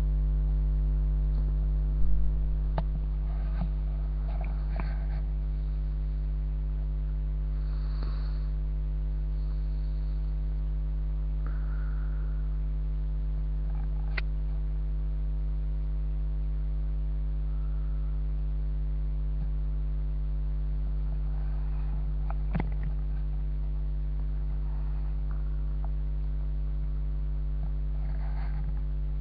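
Steady 50 Hz mains hum with its buzzing overtones, picked up by a webcam's microphone. Over it come a few faint clicks and brief rustles as the cat's fur brushes against the webcam, the loudest about two seconds in.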